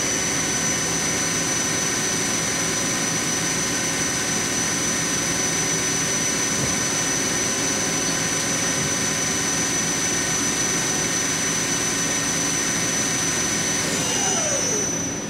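Mori Seiki SL-3H CNC lathe spindle running in high gear at about 1500 RPM, a steady mechanical sound with a high whine. Near the end the spindle winds down with falling pitch and the whine cuts off as it stops.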